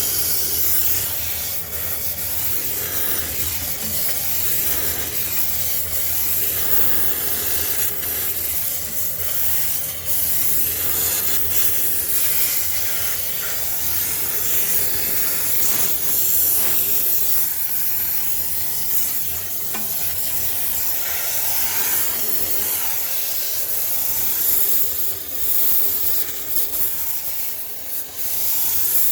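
High-pressure steam cleaner jet hissing steadily as it is sprayed over a sneaker washing machine to sanitise it, with small rises and dips as the nozzle moves.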